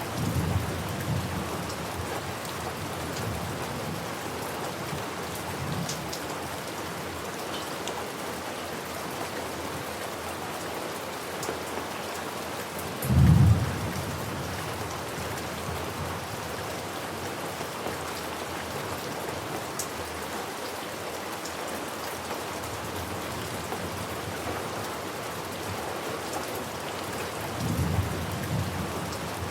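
Steady rain falling, with low rolls of thunder: one rumble at the start, a short, loud crack of thunder about halfway through, and another rumble near the end.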